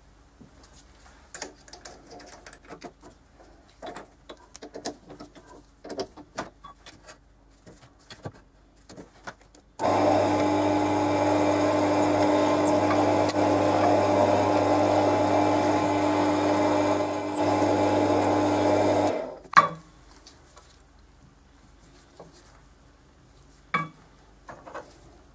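Benchtop drill press motor running with a steady hum for about nine seconds as the bit drills into the end of a wooden cylinder, starting and stopping abruptly. Before it, light clicks and knocks of the workpiece being handled; after it, a couple of sharp knocks.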